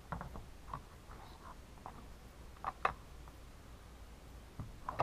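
Scattered light clicks and taps of small chainsaw parts and hand tools being handled during reassembly, one sharper click near the middle.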